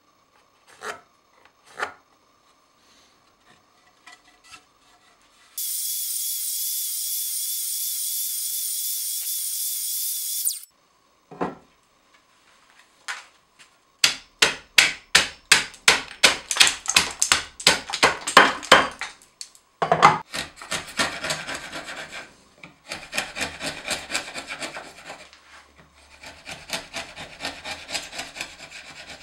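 Steel chisel breaking out and paring the waste between saw kerfs in a wooden half-lap joint: quick rhythmic scraping strokes, about four a second, then continuous paring and scraping. Earlier come a couple of light knocks of wood being set down and a steady high hiss lasting about five seconds.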